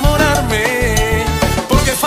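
Salsa music: a band playing a melody line over steady bass and percussion.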